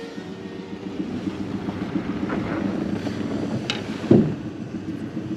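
A motor's steady low hum with wind buffeting the microphone, broken by a single knock about four seconds in.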